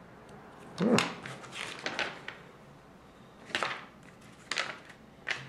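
Small plastic Lego pieces being handled: a series of sharp clicks and taps, the loudest about a second in, then scattered clicks as parts are pressed together and set down on a wooden tabletop.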